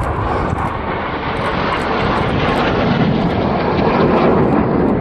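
Red Arrows BAE Hawk T1 jets flying a display pass overhead: a steady jet-engine noise that grows a little louder toward the end.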